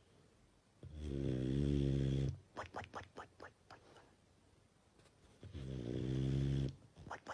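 A person snoring: two long, loud droning snores about four seconds apart, each followed by a quick fluttering run of short puffs that die away.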